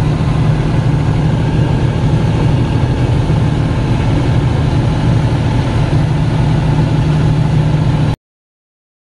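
Fishing boat's engine running steadily under way, heard from inside the wheelhouse as a loud, even drone. It cuts off suddenly about eight seconds in.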